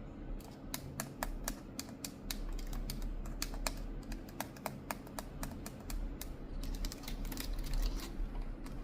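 Computer keyboard being typed on with long fingernails: quick, irregular clicks and taps of keys and nail tips, several a second.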